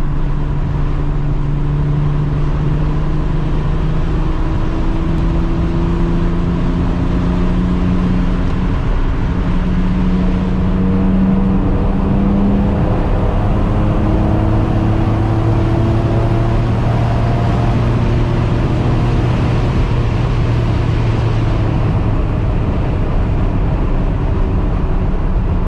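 Nissan 300ZX's V6 engine heard from inside the cabin under hard acceleration at highway speed. The engine note climbs steadily for about twelve seconds, drops with an upshift, then holds a steady, loud drone under load over road and wind noise.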